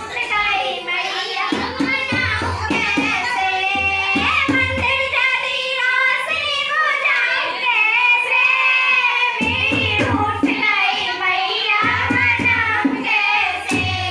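Girls singing a Hindi devotional song to the Mother Goddess (a mata bhajan) through a microphone, with a dholak drum beating time and hands clapping along. The drum drops out for about three and a half seconds around the middle and then comes back in under the singing.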